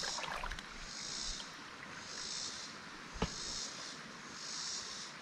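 A chorus of insects buzzing in high, regular pulses about once a second. A single sharp knock sounds about three seconds in.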